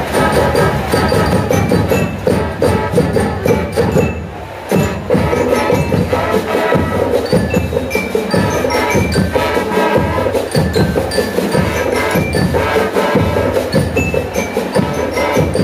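Marching band playing: brass melody on trumpets, trombones and tubas over a steady snare and bass drum beat. It briefly drops in loudness about four seconds in.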